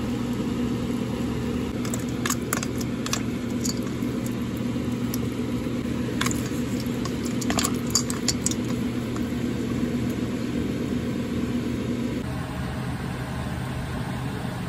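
Water boiling in a pot of green beans over a steady low hum, with a scatter of light clicks and clinks between about two and nine seconds in. The background changes abruptly a little after twelve seconds.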